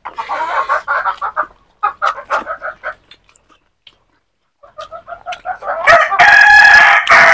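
Chickens clucking in quick runs of short notes with brief pauses, then a loud, drawn-out rooster crow starting about six seconds in.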